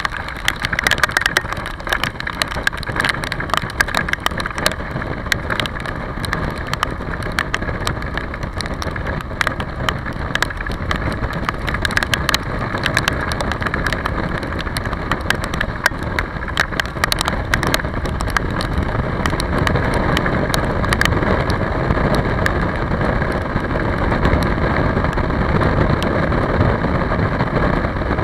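Motorcycle riding in rain: steady wind and wet-tyre road noise with the engine running underneath. Raindrops tick sharply against the camera, most often in the first two-thirds and thinning out later.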